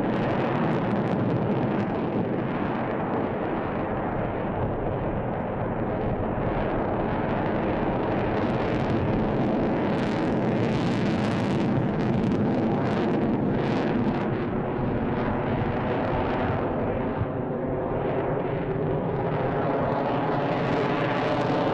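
F-22 Raptor's twin Pratt & Whitney F119 turbofan jet engines roaring steadily overhead, with a crackling edge in the middle stretch.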